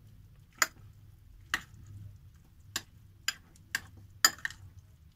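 Metal spoon clinking against a glass bowl while stirring a thick mayonnaise-based mixture, in sharp irregular clinks about one or two a second.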